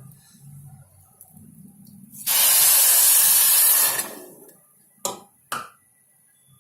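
Half a cup of water poured into a hot pan of sugar, hissing loudly for about two seconds as it hits the hot metal, followed by two short knocks.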